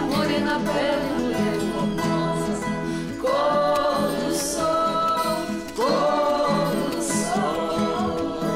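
Classical guitar playing a song, with a singing voice in two long phrases, one starting about three seconds in and another about six seconds in.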